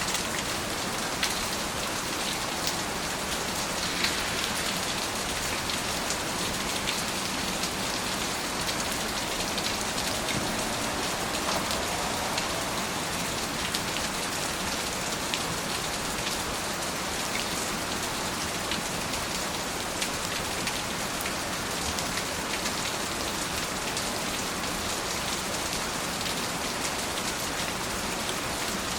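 Steady rain falling, an even hiss with many sharp individual drop ticks scattered through it.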